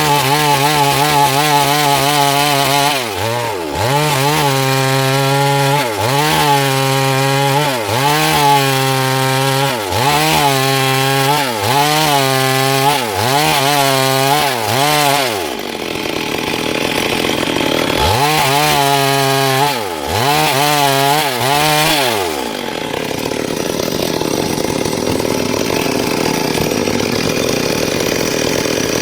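Stihl MS 382 two-stroke chainsaw cutting wood at high revs, its pitch sinking and climbing back every couple of seconds as the chain bogs under load in the cut. In the last few seconds the engine note gives way to a steady rushing noise.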